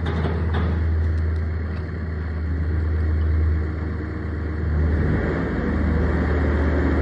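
Telehandler engine running with a steady low hum, growing louder about five seconds in.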